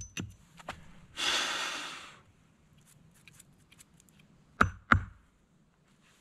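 A man's long, heavy exhale after chopping a wooden stake with a hatchet. About three seconds later come two sharp knocks, a third of a second apart.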